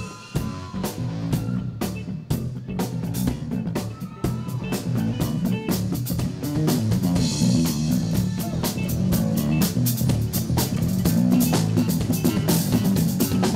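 Live band music: an electric bass guitar playing a funky line of shifting low notes over a steady drum-kit beat.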